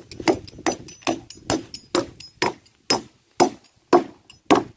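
A hammer striking wood in steady, even blows, a little over two a second, each with a short ring: nailing the wooden feed trough together.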